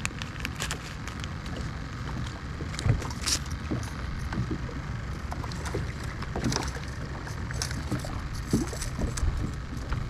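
Wind buffeting the microphone on a fishing kayak as a steady low rumble, with scattered small knocks and clicks.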